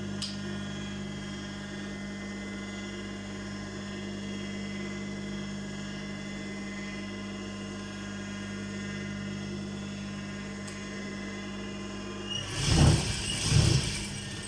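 Industrial sewing machine's motor humming steadily while idle; near the end it runs in two short bursts of stitching, a little under a second apart.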